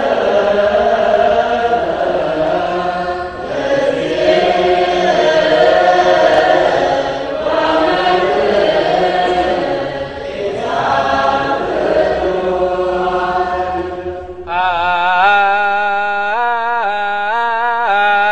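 A church choir chanting an Ethiopian Orthodox hymn in unison, the sung line swelling and falling slowly. About fourteen seconds in, the sound cuts to a clearer recording: a single melodic line moving in steps over a held low note.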